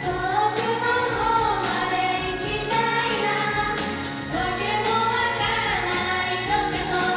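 Live pop song: female idol singers singing over pop music played through the stage sound system.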